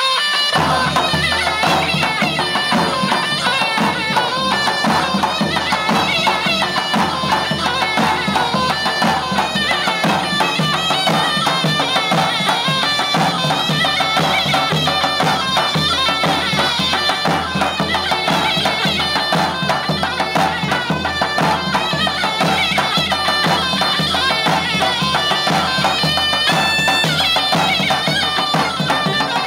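Turkish folk dance music played live on a davul bass drum with a reedy wind instrument carrying the melody over a steady drone, starting about half a second in.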